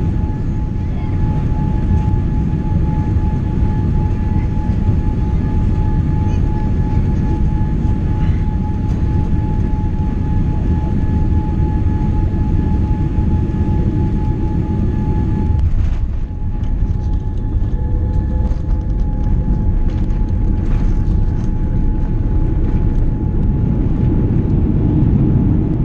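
Cabin noise of a British Airways Boeing 787 Dreamliner landing: a steady low rumble and rush of air with a thin steady whine on the approach. About two-thirds of the way through, the whine fades and the rumble dips, then builds again with scattered rattles as the airliner rolls out on the runway with its spoilers up.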